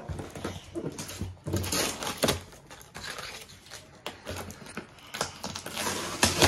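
Plastic toy packaging being handled and opened by hand: irregular rustling and crinkling with scattered clicks and taps.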